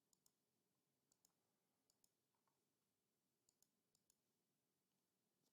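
Near silence: room tone with a few very faint scattered clicks.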